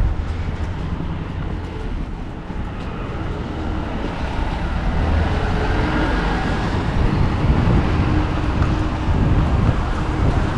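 Street traffic at a road intersection: a steady low rumble, with a vehicle engine growing louder in the second half as a small bus drives through.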